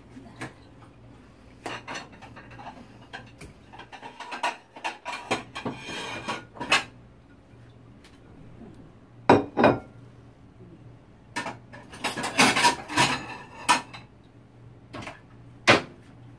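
Kitchen crockery and utensils being handled: ceramic plates and bowls clinking and clattering on the counter, with irregular knocks and a couple of busier bursts of clatter around the middle and later on.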